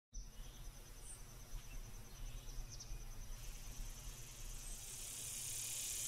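Faint woodland ambience: a steady, rapidly pulsing insect trill over a low rumble, growing slowly louder toward the end.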